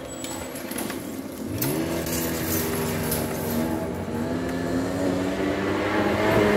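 A motor vehicle's engine pulling away and accelerating: its pitch rises sharply about one and a half seconds in, then holds while the sound grows louder toward the end.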